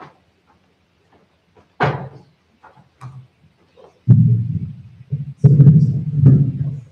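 A single thump about two seconds in, then loud low rumbling and knocking from a microphone being handled and adjusted on its stand, running for the last three seconds or so.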